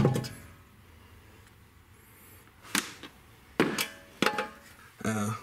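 Stainless steel coin tray and its sheet-metal insert clanking as they are handled: a knock with a short metallic ring at the start, then three separate sharp knocks a little under three, about three and a half, and about four seconds in, the middle one loudest.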